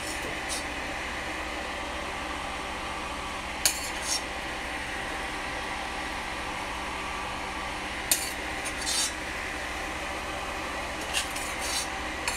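Metal spoon clinking and scraping against a stainless steel pot and a metal baking tray while cooked vegetable toppings are scooped and spread. The sounds come as short clicks in small clusters a few seconds apart, over a steady background hum.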